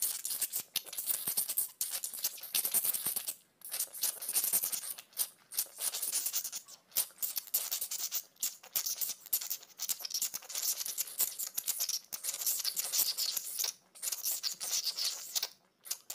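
Gritty scraping and rattling of sand as small plastic toy lizards are pushed and dragged through it, in uneven strokes broken by short pauses.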